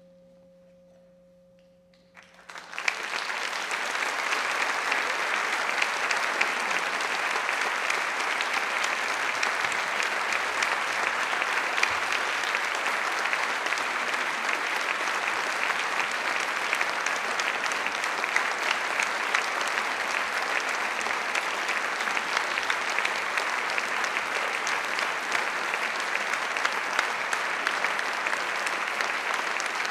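The last faint ringing tones of the gamelan fade out, then an audience breaks into applause about two seconds in and keeps clapping steadily.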